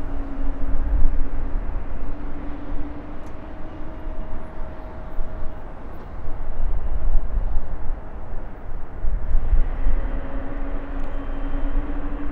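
Jet airliner engines running: a low rumble with a steady engine hum on top that fades out a few seconds in, then comes back near the end and rises slightly in pitch.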